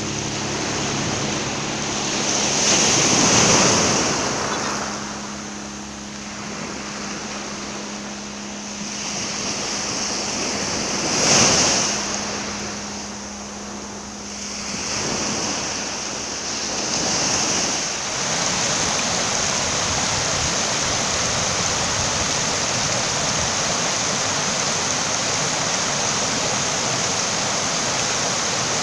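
Sea surf: waves breaking and washing in, swelling loudest about three, eleven and seventeen seconds in, then a steady rush of water through the second half. A faint steady low hum runs under the first part and stops about two-thirds of the way through.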